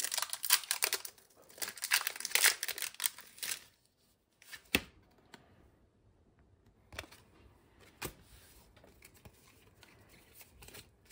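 Foil wrapper of a Pokémon trading card booster pack being torn open and crinkled for about three and a half seconds. After that come a few soft, sharp clicks as the cards are handled.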